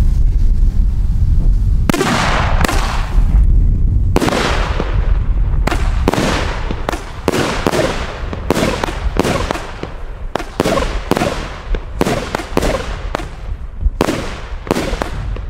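Pyrofactory Uzi (Birdkiller) firework going off: a couple of bangs at first, then a run of sharp aerial bangs, about one to two a second, each with a short echo.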